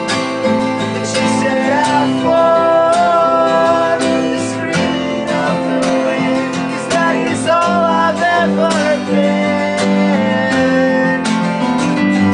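Band playing an acoustic arrangement: strummed acoustic guitar with electric guitar and keyboard, and a sung melody line coming in twice, about two seconds in and again around seven to eight seconds.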